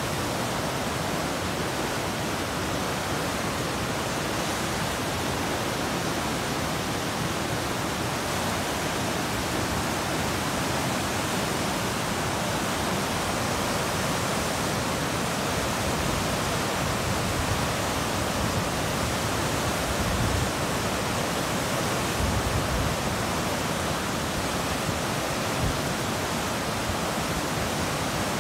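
A river in flood rushing through turbulent whitewater just below a weir: a steady, even rush of water.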